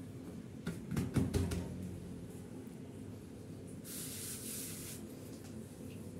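Hands working pizza dough on a marble countertop: a few soft pats and knocks in the first second and a half, then about a second of hissing rub around the middle as a palm slides across the floured dough.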